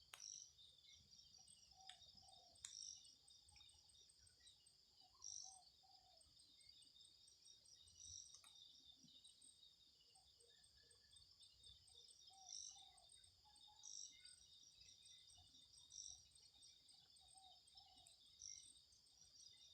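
Faint forest ambience: steady high-pitched insect chirring, with short bird calls every couple of seconds.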